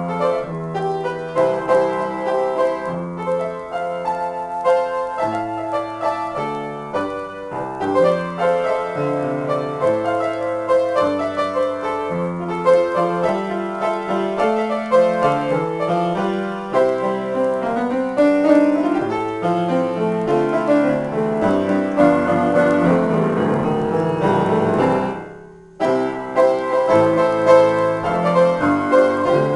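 Solo piano improvisation: chords under a moving melody, thickening into a dense, rapid passage that dies away about 25 seconds in, then resuming after a short pause.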